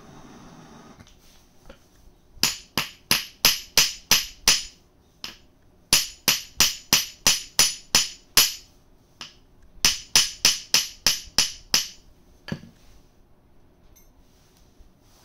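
Ball-peen hammer striking a steel punch on metal laid on a steel block, in three runs of seven or eight quick ringing blows, about three a second, with short pauses between. A steady hiss stops about a second in, before the blows begin.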